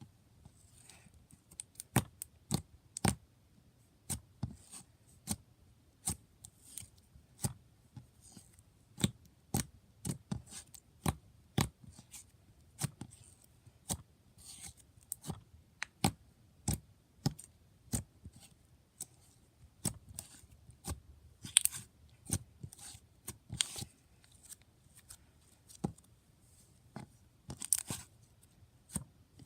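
Cloud cream slime being poked, squeezed and stretched by hand, giving sharp, irregular sticky clicks and pops, roughly one or two a second.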